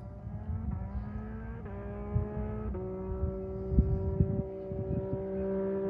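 Yamaha MT-09 SP's 890 cc inline-three with an open Spark exhaust, heard accelerating from a distance and shifting up twice, about one and a half and three seconds in: the pitch climbs and then drops back at each shift before holding steady. The engine grows louder as the bike approaches, with wind thumping on the microphone.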